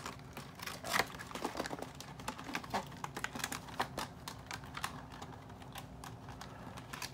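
Stiff clear plastic packaging and the cardboard insert of a doll box being handled and worked loose: a run of irregular small clicks and crackles.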